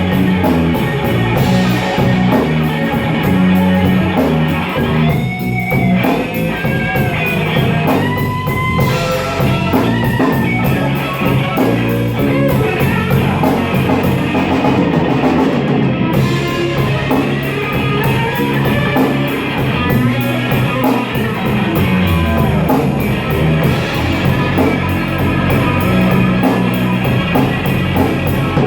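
Slow blues played by a band on electric guitar, bass and drum kit, with no vocals: the lead guitar plays a solo line with bent notes over the rhythm section.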